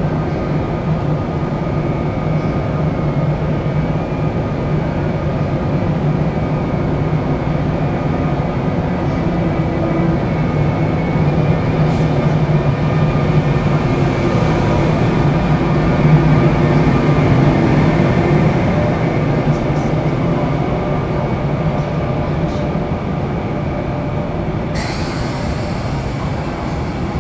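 Korail class 8200 electric locomotive pulling a passenger train away from a station platform. It makes a steady electric hum with several steady higher tones, which grows louder as the locomotive passes midway and eases as the coaches roll by. A high-pitched squeal sets in suddenly near the end.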